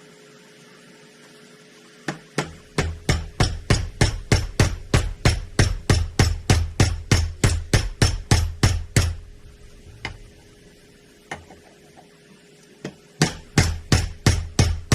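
Rapid hammer blows, about three or four a second, driving a new front wheel bearing into an ATV's wheel hub. The run pauses after about seven seconds, with two lone blows, then resumes near the end.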